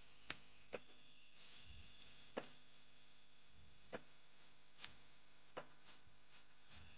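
Rubber-tapping knife shaving bark along the tapping cut of a rubber tree: short, sharp ticks at uneven intervals, about six in all, as the blade snicks through the bark. Underneath runs a faint steady chirring of night insects.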